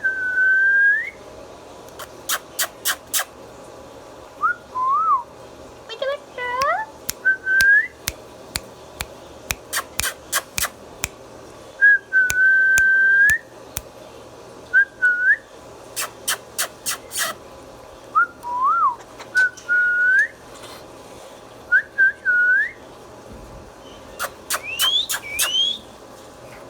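Indian ringneck parakeet whistling: many short, clear notes, mostly sliding upward or dipping and rising, with a few climbing higher near the end. Between the whistles come quick runs of sharp clicks.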